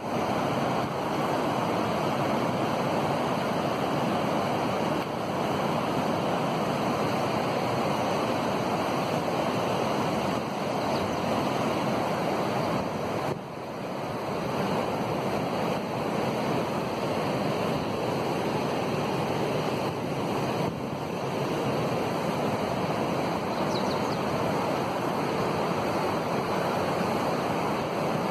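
Kaveri river in flood, fast muddy water rushing steadily past, with a brief dip in loudness about halfway through.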